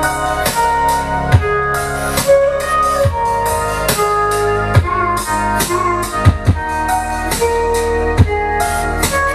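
Music with drums, a keyboard and a heavy low bass, played back through Celestion Ditton 44 loudspeakers with a Bang & Olufsen Beolab 2 active subwoofer. Held notes sit over a steady drum beat.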